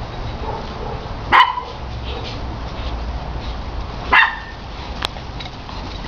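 English bulldog puppies barking: two short, high-pitched barks about three seconds apart, over a steady low rumble.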